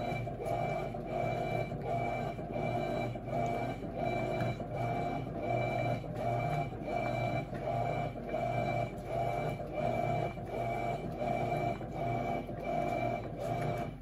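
Electrolux LT12F 12 kg top-load washing machine agitating: the motor and freshly replaced transmission drive the agitator back and forth in a steady rhythm of nearly two strokes a second, each stroke a whining hum, with the sloshing of soapy water and clothes.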